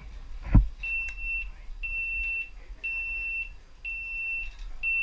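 Electronic start-gate countdown timer beeping five times, about once a second, each a short high tone: the count down to a downhill mountain bike rider's start. A short knock comes just before the beeps, with a low rumble of wind throughout.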